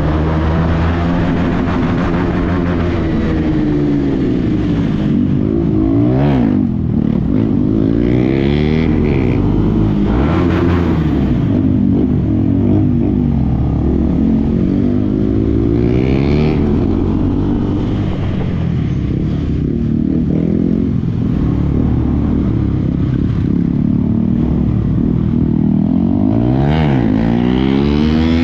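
KTM Adventure motorcycle engine breathing through a Yoshimura R77 full-system exhaust while being ridden. The engine note rises and falls continuously as it accelerates, changes gear and rolls off, with a few quick drops and climbs in pitch.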